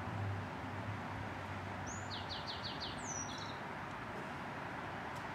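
A bird calling briefly: a quick run of about five high chirps about two seconds in, then a falling whistled sweep and a few more chirps, over a steady low background hum.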